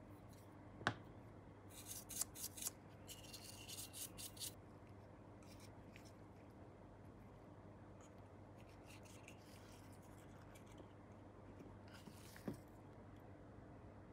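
Small handling sounds of plastic scale-model parts being worked with tweezers and gloved hands: a sharp click about a second in, a flurry of small clicks and scratchy rustles a couple of seconds later, and another click near the end, over a faint steady hum.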